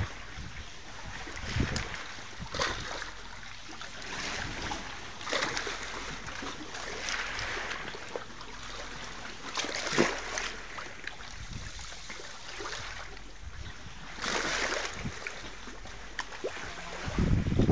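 Shallow sea water lapping and splashing at a rocky shoreline, in irregular washes that swell and fade every second or few seconds.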